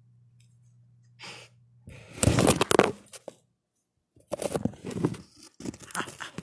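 Handling noise from a phone being moved about: bursts of rustling with sharp knocks and clicks, starting about two seconds in after a faint steady hum.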